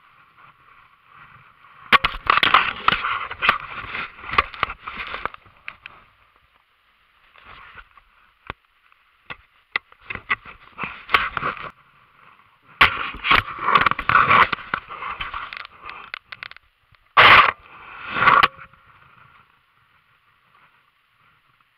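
Bursts of crunching and scraping, each a few seconds long, separated by quiet gaps, with one sharp loud knock a few seconds before the end.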